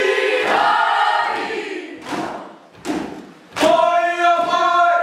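Children's kapa haka group chanting and singing in unison, broken by three sharp percussive hits about two, three and three and a half seconds in, after which the voices come back loud on a long held note.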